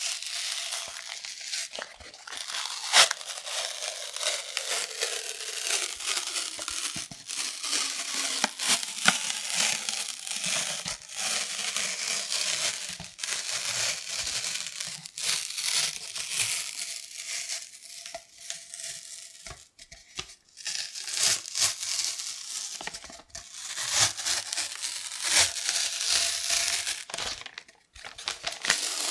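Close-miked cardboard kitchen-roll tube being scratched and rubbed with the fingers, making a dense, continuous crackly scratching with sharp little strokes. The sound breaks off briefly twice near the end.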